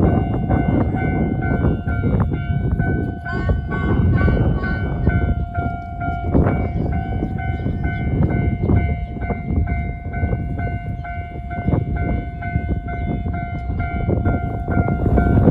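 Japanese level-crossing warning bell ringing on and off in a steady repeating pattern as a Tarumi Railway train runs through the crossing, with heavy wind noise on the microphone.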